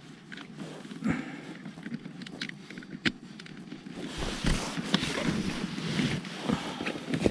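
Handling noises from a motorcycle helmet: sharp plastic clicks and rustling as a charging cable is plugged into the helmet's communication unit, with a few louder clicks spread through and more rustling near the end.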